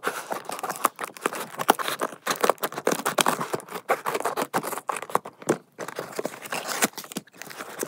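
Scissors cutting through the packing tape on a cardboard box, a quick run of snips and scrapes. Later the cardboard flaps are pulled open and the wrapping inside rustles.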